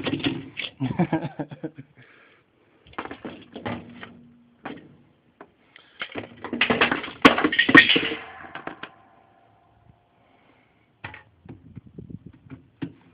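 Clattering and knocking of washing machine agitator parts being handled and fitted, in several bursts; the loudest comes about seven to eight seconds in.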